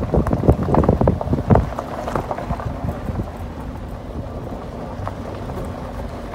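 Wind buffeting the microphone as it moves along a forest road: heavy uneven gusts for the first second or so, then a steadier low rumble.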